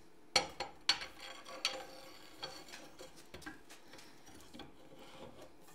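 Steel front axle shaft being slid into a Dana 25 axle housing and steering knuckle: light metal-on-metal clinks and scrapes as it goes in, strongest in the first two seconds and fainter after.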